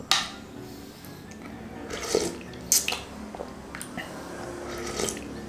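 Close-up wet eating sounds: several short slurps of spicy noodle broth off a wooden spoon.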